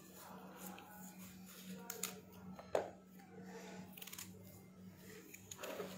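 Knife paring and cutting raw pumpkin: faint scrapes and a few short sharp clicks as the blade goes through the tough flesh. A steady low hum lies underneath.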